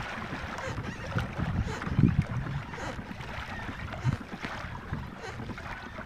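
Water sloshing against a kayak's hull as it moves, with wind buffeting the microphone and a few low thumps, the loudest about two seconds in.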